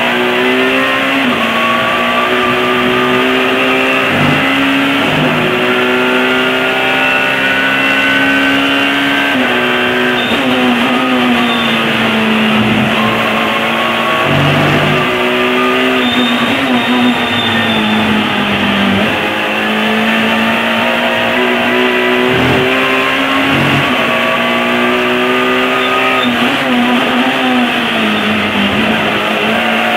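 Alfa Romeo 156 S2000 touring car's 2.0-litre four-cylinder race engine, heard from inside the cockpit at racing speed: its pitch repeatedly climbs under acceleration and then drops sharply at gearshifts and braking for corners, over steady road and wind noise.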